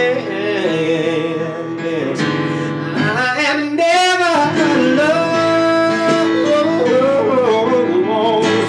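Man singing, drawn-out sliding notes with a wavering pitch about four seconds in, over a steady instrumental backing.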